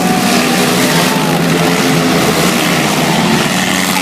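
Several four-cylinder demolition derby cars' engines running and revving at once, their pitches rising and falling over a continuous din.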